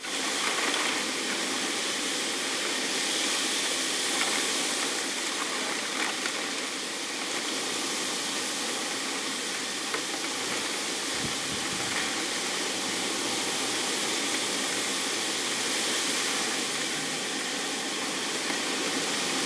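Heavy driving rain in a storm: a dense, steady hiss that swells and eases slightly with the gusts.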